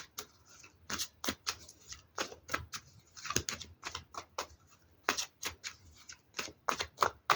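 Tarot cards being shuffled and handled, a string of irregular crisp clicks and snaps as the cards are cut and tapped.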